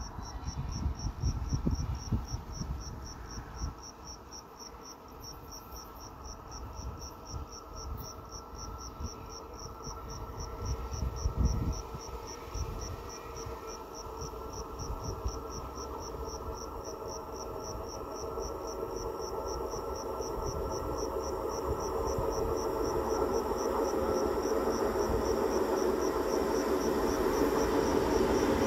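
A cricket chirps steadily at a high pitch, about three chirps a second, with gusts of wind on the microphone in the first half. From about halfway the rolling sound of an approaching electric multiple unit train rises steadily and grows louder toward the end.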